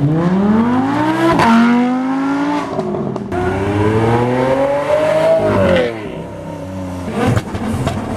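A supercar engine accelerating hard through the gears: its pitch climbs steeply, drops at upshifts about a second and a half and three seconds in, climbs again, then falls away near six seconds. A few sharp cracks come near the end.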